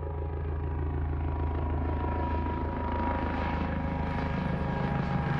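Helicopter passing by: fast, even rotor chop over a low engine rumble, with a thin turbine whine, growing gradually louder and brighter as it approaches.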